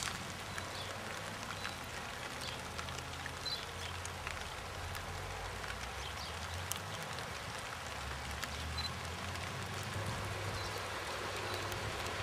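Steady outdoor background noise: an even hiss with a low hum underneath and a few faint scattered ticks and chirps, with no distinct call from the horses.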